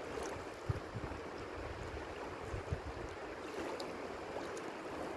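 Steady rush of flowing river water, with irregular low thumps underneath.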